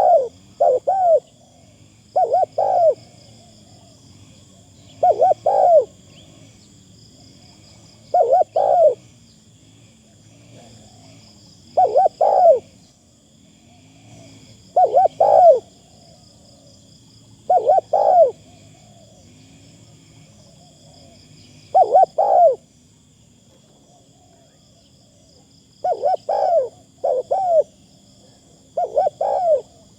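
Spotted dove cooing: short phrases of two or three low coos, repeated about every three to four seconds.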